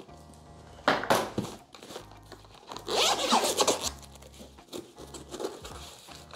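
A zipper being pulled in two runs, a short one about a second in and a longer one around three seconds in, with rustling of handled packaging between.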